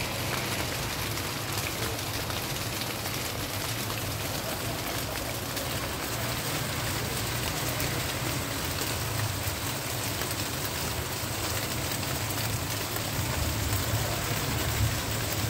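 Steady rainfall, an even hiss of rain on leaves and roofs, with a low rumble underneath.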